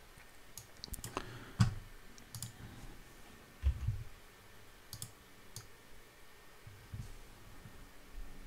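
Scattered clicks of a computer keyboard and mouse, a handful of separate key and button presses, with one louder dull thump a little under four seconds in.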